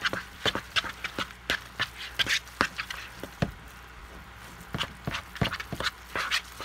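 Hands kneading a raw ground pork mixture in a plastic bowl: irregular wet squelches and slaps, with a short lull about halfway through.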